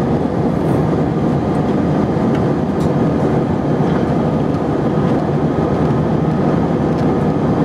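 Steady jet airliner cabin noise in flight: engine and airflow noise heard from inside the passenger cabin, even and unbroken, with a faint steady whine above it.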